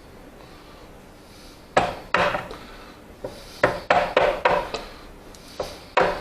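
A wood chisel driven by sharp blows into the waste of a tenon: about ten short knocks in irregular groups, starting about two seconds in.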